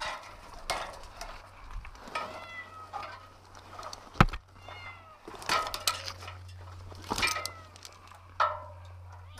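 Domestic cat stranded high in an oak tree meowing over and over, about six short calls that rise and fall in pitch. A single sharp knock about four seconds in is the loudest sound, with lighter knocks and scrapes around it.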